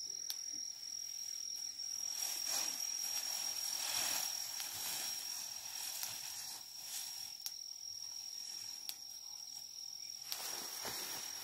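An insect trilling in one steady high tone, over rustling and swishing of tall grass as a young elephant moves through it. The rustling is loudest about two to five seconds in and picks up again near the end.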